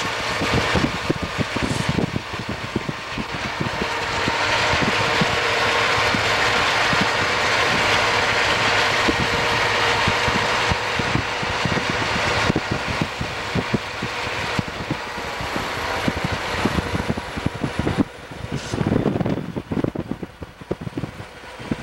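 Santa Fe diesel locomotives in dynamic braking, heard from a vehicle pacing alongside: a steady roar with a faint whine, swelling a few seconds in and easing off later. Wind buffets the microphone throughout and turns choppy near the end.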